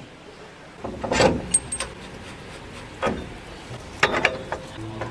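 A few separate metal clanks and knocks, about a second in, at three seconds and around four seconds, with a short high ring after the first. They come from tools and hub parts being handled while a new front wheel bearing is fitted.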